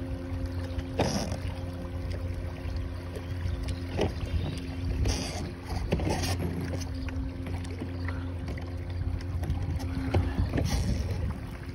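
Bixby electric kayak motor running steadily at full power with a steady hum, over water washing past the hull, with a few brief bumps.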